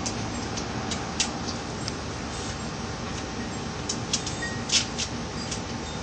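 Light, scattered clicks and taps of small dogs' claws on a glass tabletop, over a steady background hum.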